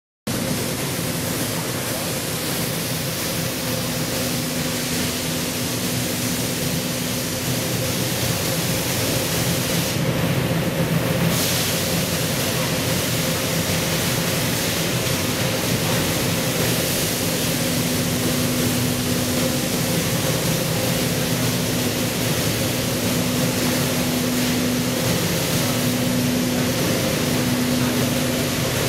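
Steady machinery noise inside a Herrenknecht tunnel boring machine: an even, loud rushing din with a constant low hum. The hum drops out for several seconds in the middle and comes back, breaking briefly near the end.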